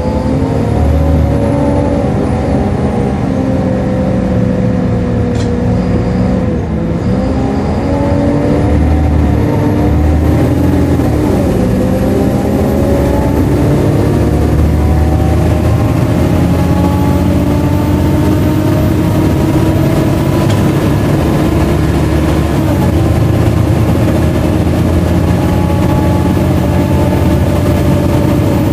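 Volvo B7LA articulated bus's six-cylinder diesel engine and drivetrain heard on board while under way, loud and steady, with a loud cooling fan. The pitch dips briefly about a quarter of the way in, then climbs slowly through the middle as the bus accelerates.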